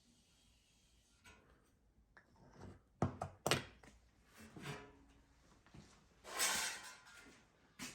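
Sheet-metal floor pan being handled and set into the car floor: two sharp knocks about three seconds in, lighter clatter, then a scraping slide about six seconds in.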